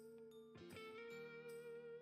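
Quiet background music: a held melody note over a steady accompaniment, with light ticks keeping the beat and a change of notes a little over half a second in.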